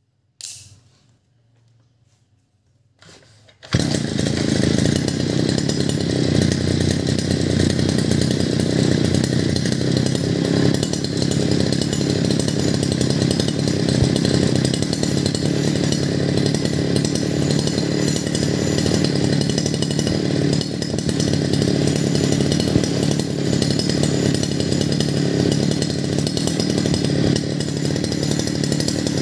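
Sun-Max 52cc two-stroke brush cutter engine catching about four seconds in, after a click, then running steadily and loudly with no shaft or blade fitted, so without load.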